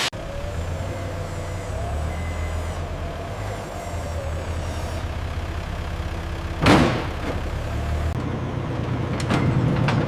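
Heavy machinery running with a steady low hum, a sudden hiss of released air about two-thirds of the way through, and a few sharp clicks near the end.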